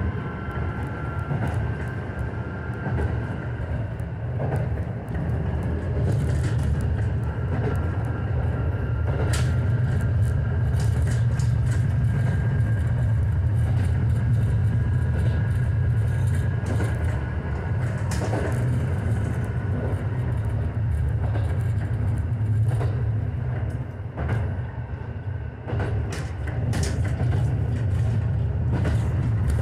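Interior sound of a JR Kyushu KiHa 125 diesel railcar under way: a steady low rumble of the diesel engine and wheels on the rails, with occasional sharp clicks and clacks from the running gear.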